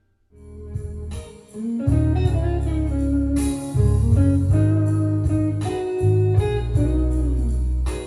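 Guitar music played through a Marantz 1040 stereo console. It starts after a brief silence, and the full heavy bass comes in about two seconds in.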